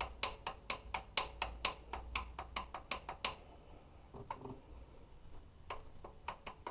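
A rapid run of sharp, even clicks, about four a second, that stops after about three seconds; a few more clicks come near the end.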